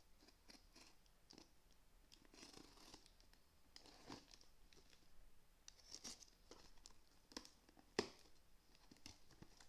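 A sealed parcel being torn open by hand, with intermittent tearing and crinkling of its packaging and a sharp snap about eight seconds in.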